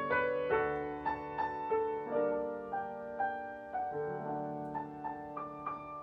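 Soft background piano music: a slow melody of single struck notes over held lower notes.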